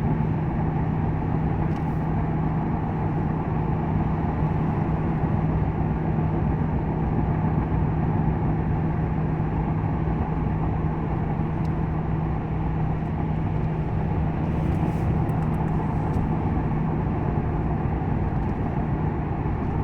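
Inside the cabin of a 2001 Ford Crown Victoria at highway speed on an uphill grade: steady road and tyre noise with the engine's steady hum underneath. A few faint clicks come in the second half.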